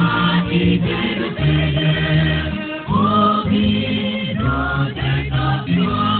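Choir singing a gospel song in Luo, several voices in harmony with sustained low notes beneath.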